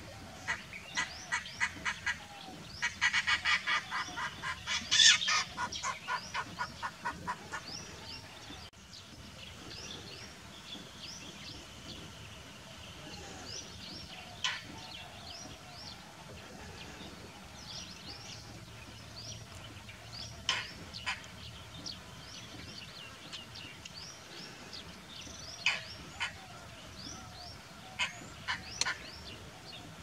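Indian roller calling: a rapid series of harsh repeated calls for the first several seconds, loudest about five seconds in, then single calls now and then, twice in quick pairs near the end. Faint short high chirps run underneath throughout.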